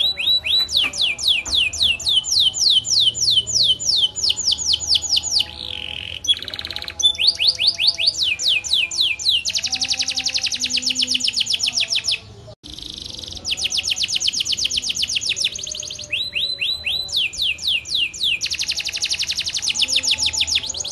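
Domestic canary singing a long, rolling song: fast trills of repeated sweeping high notes in runs, changing pattern every few seconds. There is a brief break about twelve seconds in.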